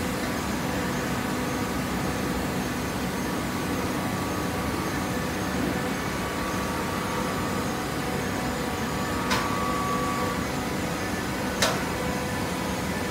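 Steady machine hum, typical of a hydraulic waste paper baler's motor and pump running, with two sharp clicks about two seconds apart in the second half.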